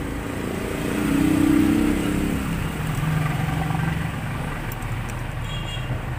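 A motor vehicle engine running close by. It is loudest about a second and a half in, and its pitch then drops lower.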